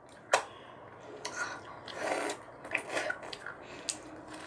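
Faint, scattered small clicks and a short rustle about two seconds in, as children handle and eat ice cream bars.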